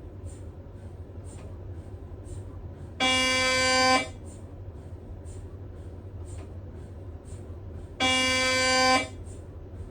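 Siemens MAGNETOM Spectra 3-tesla MRI scanner's gradient coils sounding a scan sequence: two loud buzzing tones, each about a second long and five seconds apart, with faint ticking and a steady low hum between them.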